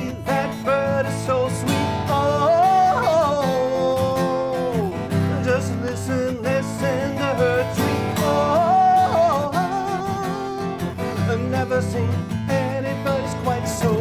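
Acoustic guitar strummed with a man singing along; about three seconds in the voice rises to a long held note that slides down about two seconds later.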